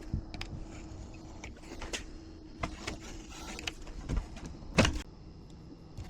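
Scattered light clicks and knocks over a faint steady hum, with one louder knock near the end.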